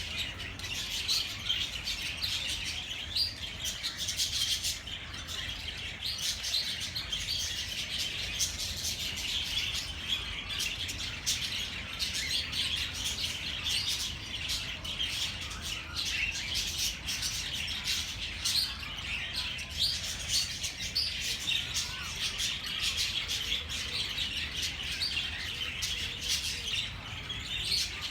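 A flock of small birds chirping and twittering continuously, many short overlapping chirps with no pause, over a steady low background hum.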